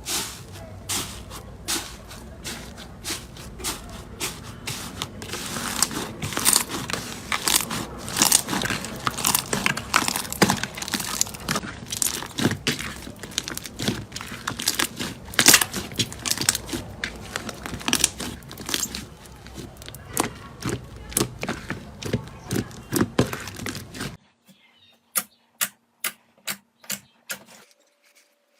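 Slime being squeezed and kneaded by hand, giving a dense run of sticky crackles and pops. Near the end it changes to a quieter take with separate sharp pops, about two a second.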